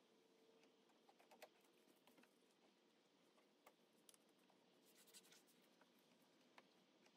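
Near silence: faint room tone with a few scattered soft ticks.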